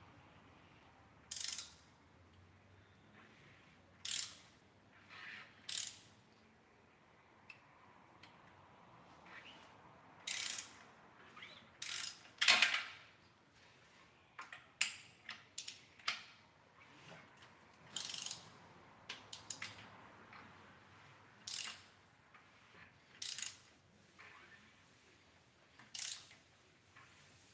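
Hand ratchet clicking in short bursts every second or two, turning the rocker arm nuts while setting pushrod preload on an engine's valvetrain; the loudest burst comes about halfway through.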